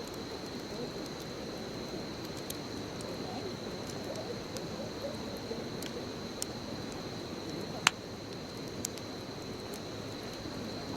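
Bonfire burning with a steady low rush and scattered sharp crackles and pops of burning wood. The loudest pop comes about eight seconds in. A thin steady high tone runs underneath.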